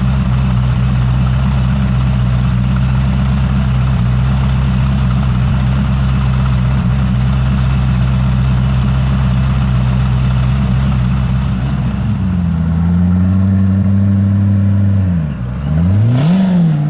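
Koenigsegg CC8S's supercharged V8 idling with a steady, deep note. Near the end it gives one quick rev that rises and falls in pitch.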